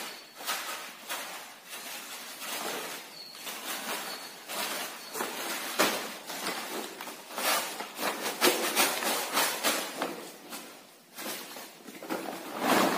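Irregular rustling and crackling of a plastic sack being shaken out over a heap on plastic sheeting.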